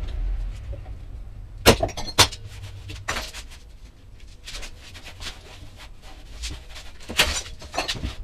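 Scattered sharp knocks and clicks, a few seconds apart, over a faint low hum.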